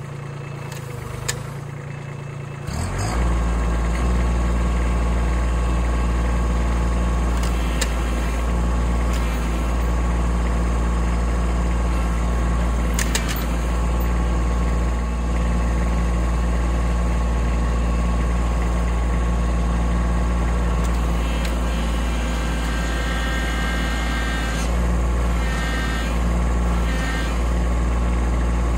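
Kubota B2601 compact tractor's three-cylinder diesel engine throttling up about three seconds in and then running steadily at high revs under load, dragging a fallen tree trunk that does not come free.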